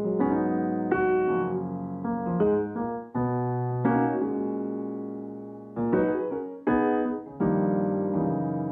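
Background piano music: single struck notes and chords at a slow pace, each ringing and fading before the next.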